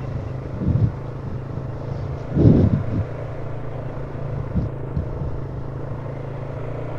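An off-road vehicle's engine running steadily at low trail speed, with a brief louder swell about two and a half seconds in.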